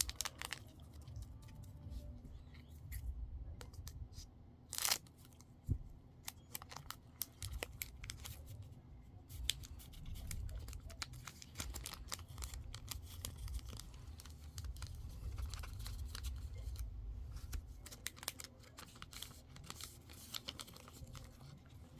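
A foil Pokémon booster pack being torn open and crinkled, with a run of small crackles and clicks as the wrapper and cards are handled. The sharpest tearing sound comes about five seconds in.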